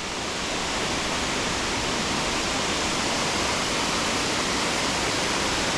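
Steady rushing of a waterfall, an even noise that does not change.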